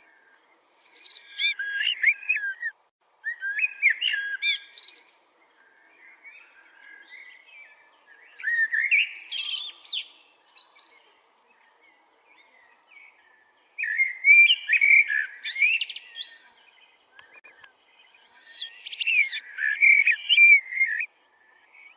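A bird singing five separate phrases of warbling, gliding notes, a few seconds apart.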